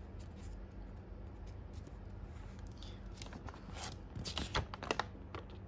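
Faint handling noise: light rustling, then a cluster of small sharp clicks in the second half, as a pair of Vise-Grip locking pliers is handled.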